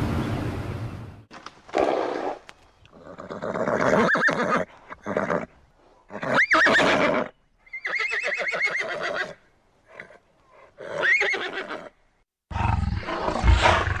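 Horses whinnying: about six separate calls, several carrying a high, quavering tone that rises and falls, with short gaps between them.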